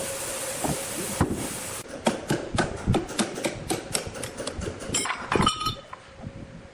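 A steady rushing noise that cuts off abruptly about two seconds in, followed by a rapid series of sharp knocks and clinks, about four or five a second, with a short metallic ringing near the end.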